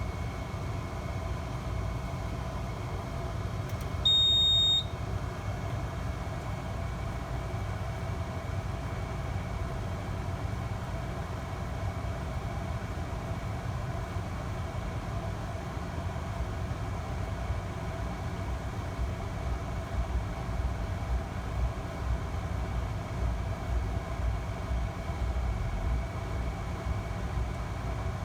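A single high-pitched electronic beep from the fire alarm equipment, just under a second long, about four seconds in, over a steady low hum.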